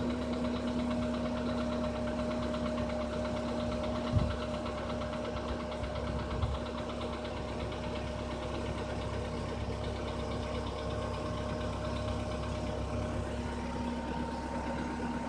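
Skoda Rapid's 1.6 CFNA four-cylinder petrol engine idling after start-up with a rapid, steady knocking, a knock that has grown louder. A single sharp thump about four seconds in.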